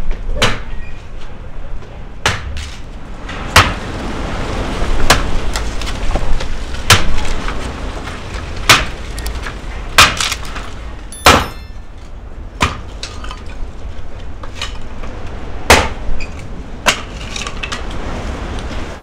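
A hatchet chopping thin wooden slats into kindling: about a dozen sharp chops and cracks of splitting wood, irregularly spaced a second or two apart.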